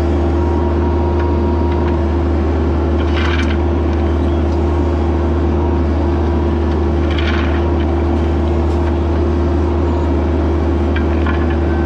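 Bobcat E26 mini excavator's diesel engine running at a steady, constant throttle, a loud even drone with a steady hum. Two short higher noises come through about three and seven seconds in.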